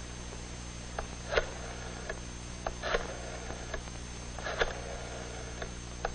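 Rotary telephone being dialed: a short rattle about every second and a half as each digit is wound and the dial spins back, with faint clicks between, over a steady mains hum on the old film soundtrack.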